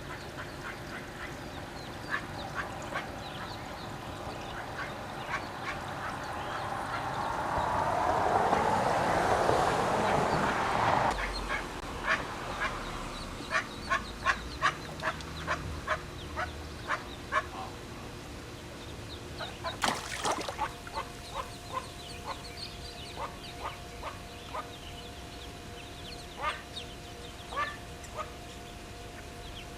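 Ducklings peeping over and over in short, high calls. A rush of noise swells louder and cuts off suddenly about eleven seconds in, and there is a single sharp crack around twenty seconds in.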